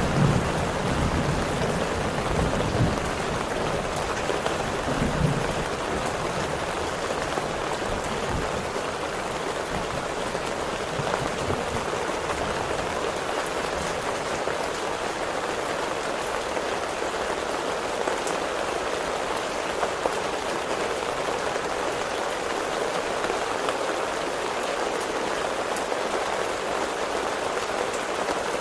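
Heavy rain falling steadily as a dense, even hiss. In the first few seconds the tail of a low thunder rumble fades out under it.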